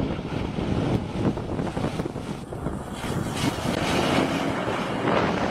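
Lockheed C-130 Hercules' four turboprop engines running as the plane pushes through deep snow, a steady noisy rush mixed with wind buffeting the microphone.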